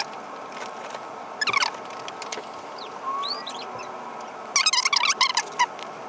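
A bird chirping: a short call about a second and a half in, a rising whistle a little after the middle, and a quick run of chirps near the end, over a steady room hum.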